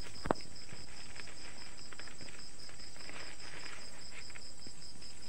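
Crickets chirping at night in a steady, even pulse of about six chirps a second, with a higher continuous trill above it. Light rustling runs underneath, and a single sharp click sounds about a third of a second in.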